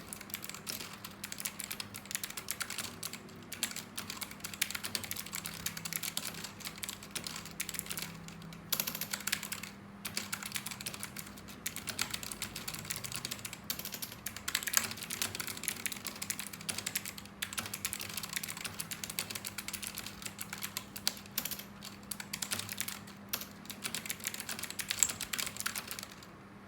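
Computer keyboard under fast, continuous touch-typing, a dense run of key clicks with a few brief pauses, at a typing-test pace of about 74 words per minute. A faint steady hum sits underneath.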